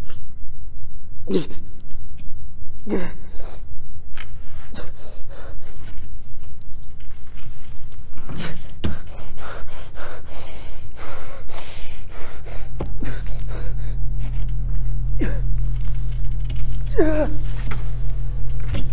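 A man gasping and panting for breath in short, voiced gasps that fall in pitch, over a loud, throbbing low drone. A steady low hum joins about two-thirds of the way through.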